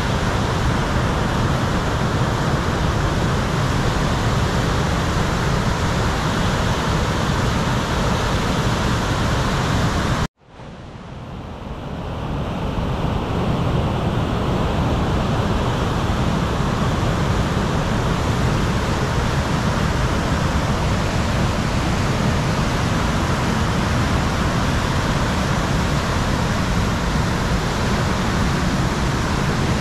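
Rushing whitewater river rapids: a loud, steady rush of water. About a third of the way in, it cuts out abruptly and fades back up over a couple of seconds.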